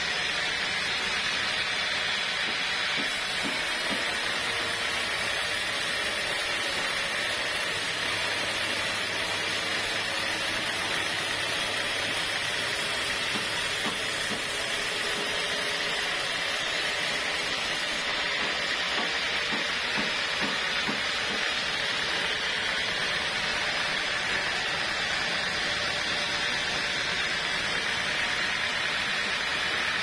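Band sawmill blade cutting lengthwise through a large block of mahogany, a steady high hiss of the saw running in the cut.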